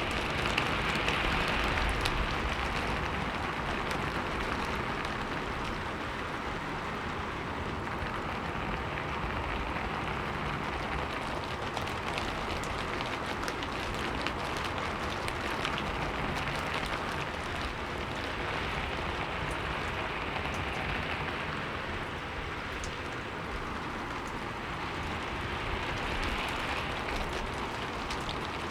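Steady heavy rain falling, a dense hiss of drops with fine individual taps, swelling and easing slightly every several seconds.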